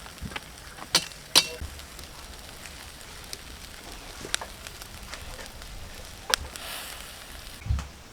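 Chicken drumsticks sizzling as they grill over a fire, with a few sharp crackles and pops.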